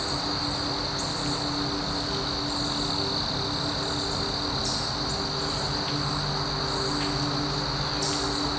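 Insects trilling steadily at one high pitch in the open air, with a short sharp sound about eight seconds in.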